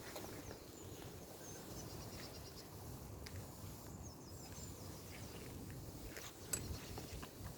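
Wind rumbling on the microphone outdoors, with rapid high chirping in the background in two runs, the first about a second in and the second around four seconds in, and a single sharp click near the end.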